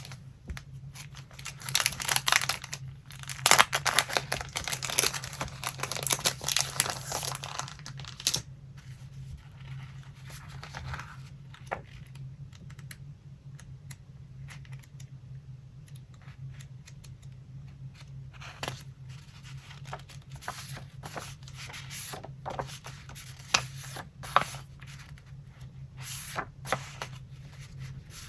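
Paper ripping in a quick run of strokes from about two to eight seconds in, then quieter scattered rustles and light taps of paper being handled.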